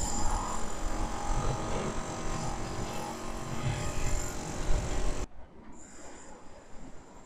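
Outdoor street ambience: a steady noisy background of town sound that cuts off abruptly about five seconds in, leaving a much quieter background.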